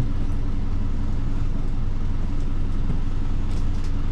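Bus diesel engine idling while stopped, a steady low rumble heard from inside the cabin.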